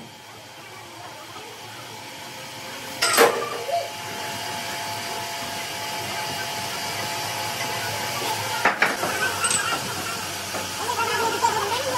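Machine-shop noise: a steady hiss with a faint hum that grows louder, broken by a loud metal clank about three seconds in, another near nine seconds, and smaller knocks near the end, as a cast four-bladed ship propeller is handled on a large lathe.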